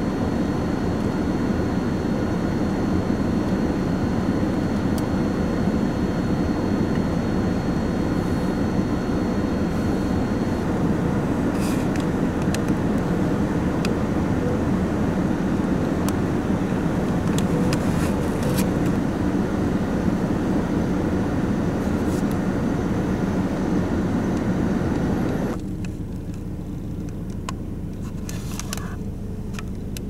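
Strong blizzard wind blowing across the microphone, a steady rushing noise. It becomes noticeably quieter about four-fifths of the way through.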